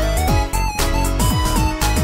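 Background music: an electronic track with a steady beat, held melody notes and repeated downward-sliding bass notes.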